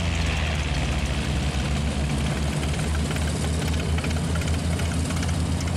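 Boeing Stearman biplane's radial engine idling with the propeller turning, a steady deep throb with an even beat.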